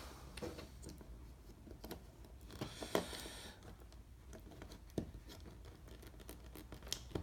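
Faint scattered plastic clicks and taps from fingers handling a Lego minifigure and fitting its detached legs back on, with a brief soft hiss about three seconds in.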